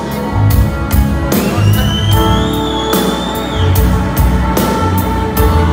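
A live band playing the instrumental opening of a song: a steady drum beat under bass and chords, with a high held note that slides upward in the middle.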